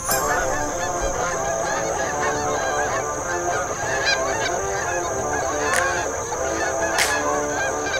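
A flock of Canada geese honking, many overlapping calls.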